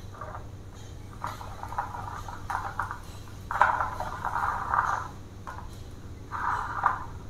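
Plastic wheels and PVC-pipe frame of a homemade dog wheelchair being handled and fitted, giving intermittent scraping and clattering. There are about five bursts, the longest and loudest near the middle.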